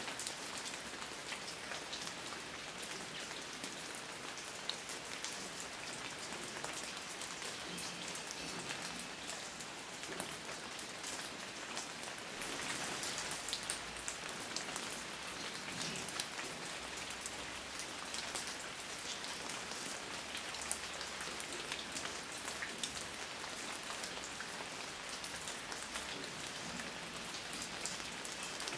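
Steady rain falling, with many individual drops pattering on a surface; it swells a little for a few seconds near the middle.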